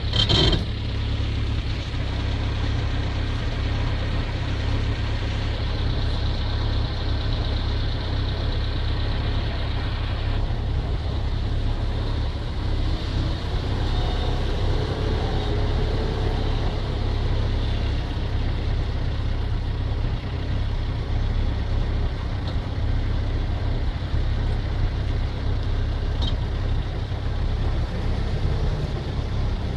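Off-road 4x4 engines running at low revs, a steady low rumble as the vehicles idle and crawl on rock. The upper sound thins out about ten seconds in, and a faint rise and fall in engine pitch comes a few seconds later.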